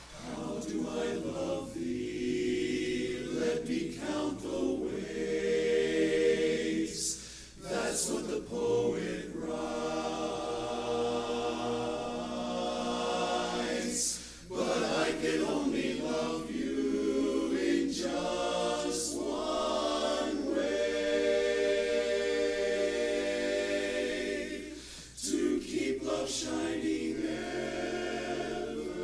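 Barbershop chorus singing a cappella in harmony, phrase by phrase with short breaths between phrases.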